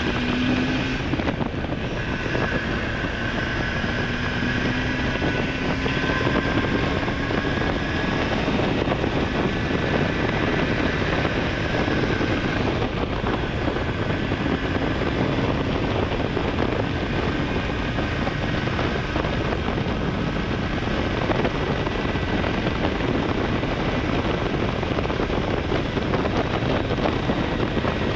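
Honda Hornet 900 inline-four engine running under way on the road, buried in heavy wind rush over the camera's microphone. The engine note climbs slightly over the first several seconds, then holds steady.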